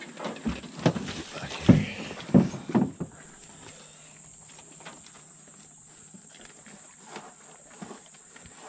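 A run of knocks and thumps, like steps and shifting weight in a small boat, for the first three seconds, then a quieter stretch under a steady high insect drone.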